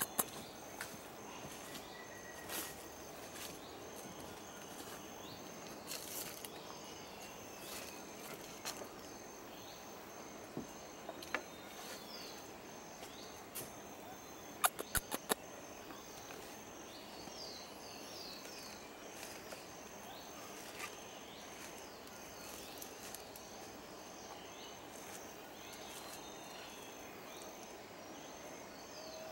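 Tropical rainforest ambience: a steady insect hum with a faint pulsing high tone, scattered short bird chirps, and occasional sharp clicks, the loudest a quick run of four about fifteen seconds in.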